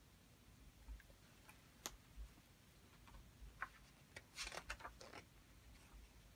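Faint rustle and crackle of a picture book's page being turned, about four seconds in, after a few soft clicks from the book being handled.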